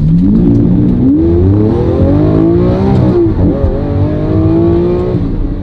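Lamborghini Aventador's V12 engine accelerating hard, heard from inside the cabin. Its pitch climbs, drops sharply at an upshift about three seconds in, climbs again, then falls away near the end.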